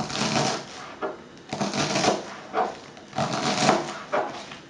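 Kitchen knife slicing crisp Swiss chard stalks thin on a plastic cutting board, in short runs of quick cuts, each one ending in a tap of the blade on the board.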